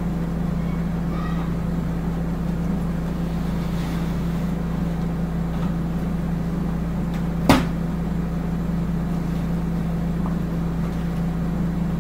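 A steady low electric hum, with one sharp click about seven and a half seconds in.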